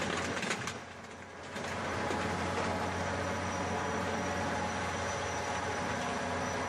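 A steady engine-like hum, as of a motor idling, with a short dip in level about a second in.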